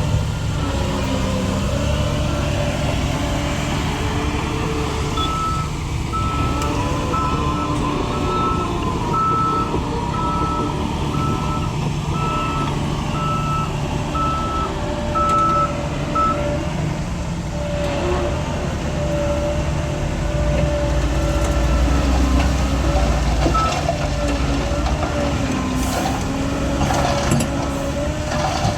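Diesel engines of heavy earthmoving machinery running, with a reversing alarm beeping about once a second for some ten seconds. A burst of metallic clanks comes near the end.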